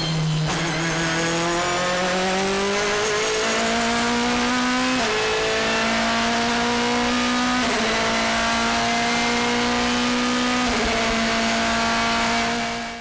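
BMW M3 DTM race car's V8 engine heard from onboard, accelerating hard through the gears: the pitch climbs steadily, with quick upshifts about five, eight and eleven seconds in, before the sound fades out at the end.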